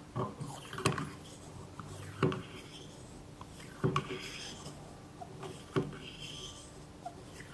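Hand vacuum oil-sampling pump being worked to draw oil from a drum into a plastic sample bottle: about five plunger strokes, one every one to two seconds, each a sharp knock followed by a rubbing rasp and a soft hiss of air.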